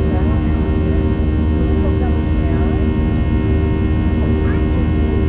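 Boeing 737 jet engines droning steadily as heard inside the passenger cabin: a deep rumble under a dense chord of steady whining tones, without change.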